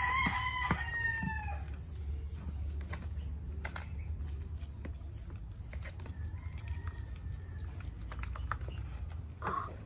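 A rooster crows once at the start, a call of about a second and a half that falls slightly at its end, and a fainter crow follows near the middle. Under it there are scattered short clicks and scrapes from a blade cutting through roots and packed soil, over a steady low hum.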